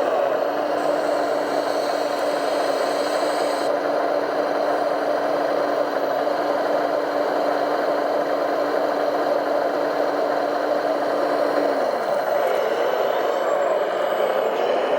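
Radio-controlled truck's motor running steadily, with a held whirring note that drops in pitch about twelve seconds in.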